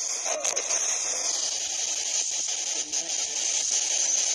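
Handheld spirit box radio sweeping through stations: a steady hiss of radio static, broken by brief chopped snatches of sound, one about half a second in.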